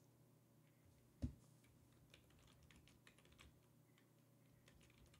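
Faint typing on a computer keyboard: a short run of light keystrokes, with one louder soft thump about a second in.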